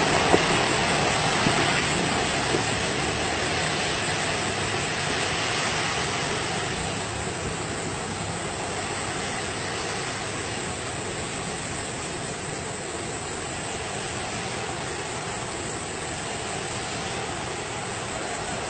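Steady rushing roar of a volcanic eruption, slowly fading over the first several seconds and then holding level.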